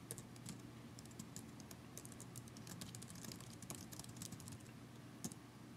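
Faint, quick, irregular clicking of computer keyboard keys as a short line of text is typed.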